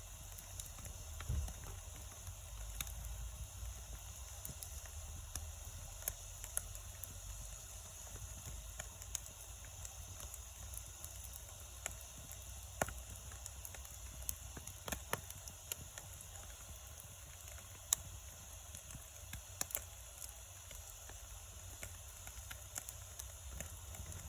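Wood campfire burning: irregular sharp crackles and pops over a steady hiss and a low rumble.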